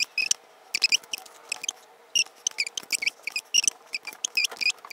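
Hair being handled and parted into sections by hand: a quick, irregular run of short, dry, scratchy rustles close to the microphone.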